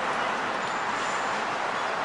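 Steady roar of city street noise, a constant wash of traffic.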